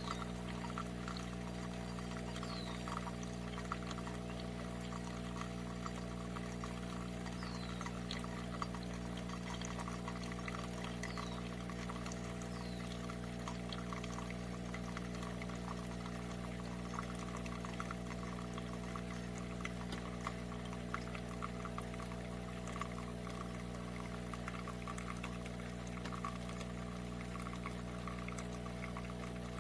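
Cuisinart SS-10P1 single-serve coffee maker brewing: a steady hum from the machine while liquid pours and crackles into the cup.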